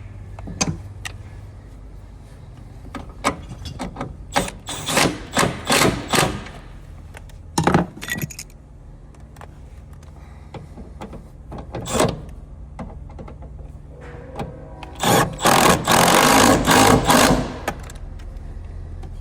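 Clicks, knocks and rattles of metal parts and tools being handled while the seat belt assembly is worked on, with a busy stretch of rattling and scraping near the end.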